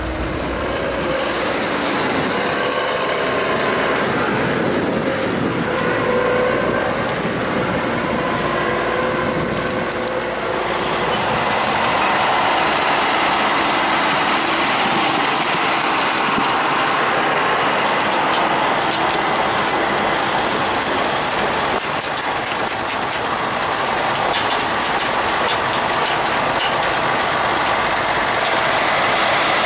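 Heavy harvest machinery working a corn field, a steady, dense mechanical noise, with a stretch of fast fine rattling partway through.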